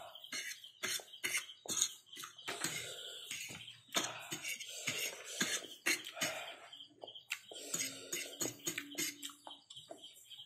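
A person eating instant noodles at close range, chewing and slurping, with frequent sharp clicks of cutlery against a dish.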